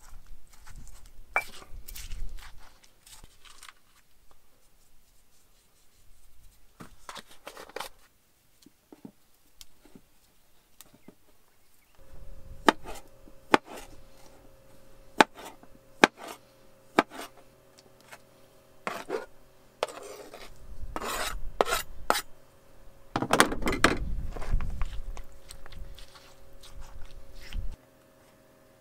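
Stone pestle grinding and knocking in a stone molcajete, then a kitchen knife chopping cherry tomatoes and slicing corn tortillas on a plastic cutting board, with many sharp knocks of the blade on the board.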